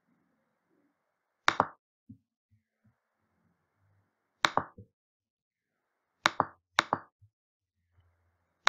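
Computer mouse clicks close to the microphone, each a quick press-and-release double: one about a second and a half in, one about four and a half seconds in, two close together a little past six seconds, and one at the very end.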